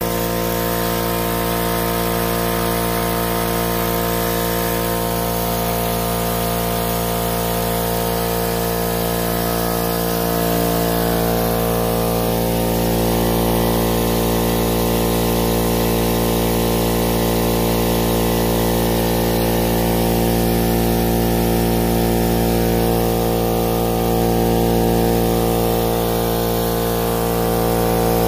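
King Canada Flex Air 20-gallon oil-lubricated air compressor running steadily through its break-in run. The pump runs unloaded with the tank valve and bottom drain open, so its air blows straight out instead of building pressure.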